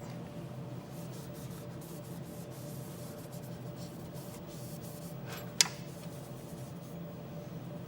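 Light rubbing and handling of parts over a steady low hum, with one sharp click about five and a half seconds in.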